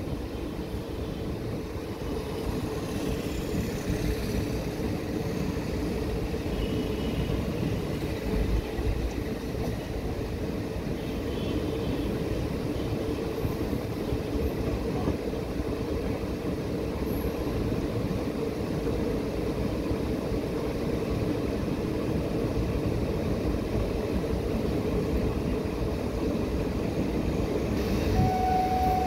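Passenger train running, heard from an open coach doorway: a steady rumble of the coaches and wheels on the rails. A steady tone comes in near the end.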